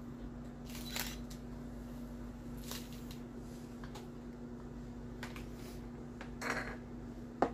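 Green onions being snapped and torn by hand and dropped into a bowl: a few short, soft crackles and rustles over a steady low hum, with a sharper click near the end.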